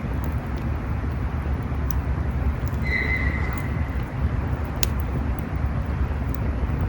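Campfire burning with a steady low rush and occasional sharp crackles. About three seconds in, a single high, thin call lasting under a second, typical of a distant sika deer.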